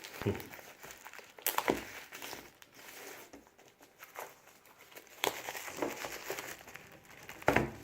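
Plastic shrink-wrap being torn and peeled off a sealed steelbook case, in irregular crinkling rustles and crackles, with a loud crackle near the end.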